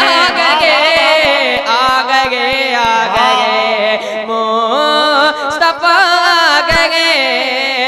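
A boy's voice singing a naat, an Urdu devotional song in praise of the Prophet, into a microphone, drawing out long gliding, ornamented notes between lines of verse.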